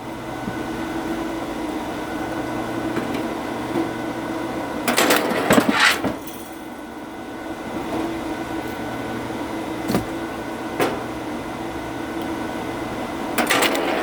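A motor runs steadily with a constant hum, as on a powered log splitter. Oak wood cracks and splits in a crackling burst about five seconds in and again near the end, with a couple of single knocks in between.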